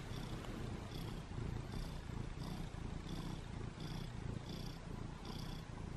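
Domestic cat purring close to the microphone, a steady rumble that swells and fades with each breath, about every three-quarters of a second.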